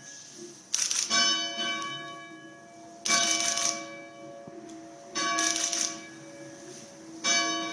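Church bell ringing: four strokes about two seconds apart, each ringing on and fading before the next.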